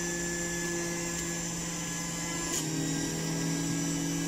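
Electric centrifugal juicer motor running steadily with a whine, shredding beetroot. About two and a half seconds in there is a click and the pitch drops a little.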